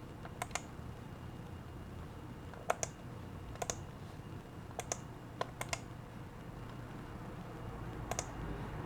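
Scattered clicks at a computer, mostly in quick pairs, in about six small groups over a faint steady low hum.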